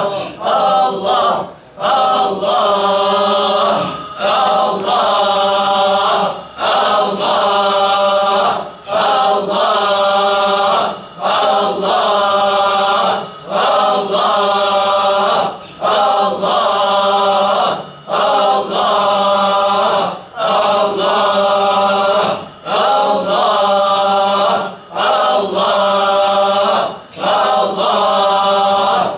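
Group of men chanting the divine name "Allah" in unison in Sufi dhikr, one long held phrase repeated about every two seconds with a short pause between repeats.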